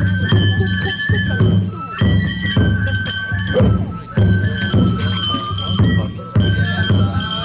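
Japanese lion-dance festival music: a bamboo flute playing held, stepping notes over a drum pattern, the phrase surging again about every two seconds.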